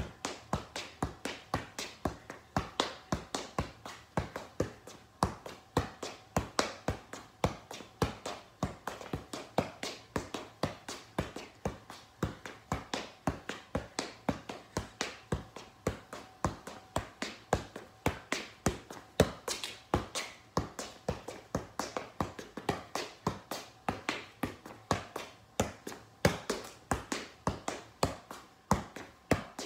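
A soccer ball being juggled on the feet: a steady, unbroken rhythm of sharp taps, about three a second, as the ball strikes the foot.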